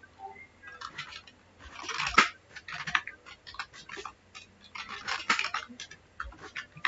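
Computer keyboard being typed on: quick runs of keystroke clicks with short pauses between bursts.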